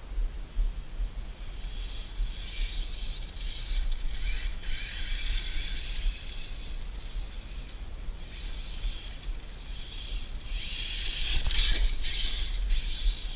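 Brushless motor and gear drive of a Mini Revo RC monster truck whining in repeated bursts as it is driven, the pitch rising and falling with each burst of throttle. The longest and loudest run comes about two thirds of the way through.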